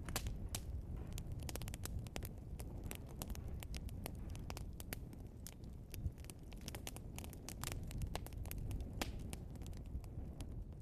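Logs burning in a fireplace, crackling and popping: many sharp, irregular pops over a steady low rumble of the fire.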